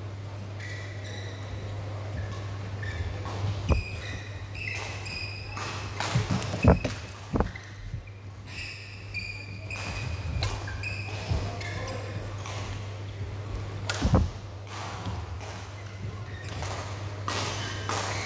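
Badminton rally in a large indoor hall: sharp racket strikes on the shuttlecock, the loudest about seven seconds in and again past the middle, with short high shoe squeaks on the court floor in between, over a steady low hum.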